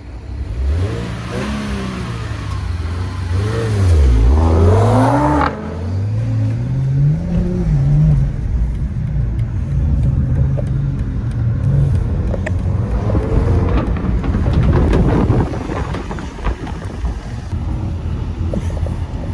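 Car engine accelerating hard from a stop, its pitch climbing and dropping several times in the first few seconds, then running on more steadily.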